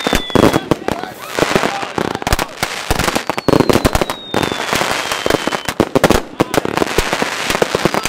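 Firework batteries firing in rapid succession: a dense run of bangs and crackling star bursts. A long whistle slowly falls in pitch from about three seconds in, and another starts near the end.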